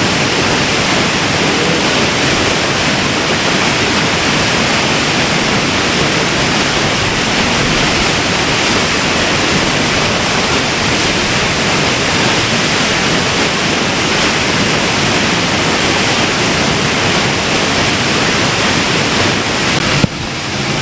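Eas Mor waterfall in heavy spate after torrential rain, falling about 100 feet onto the rocks at its foot: a loud, steady rush of white water close to the microphone. The sound drops away suddenly near the end.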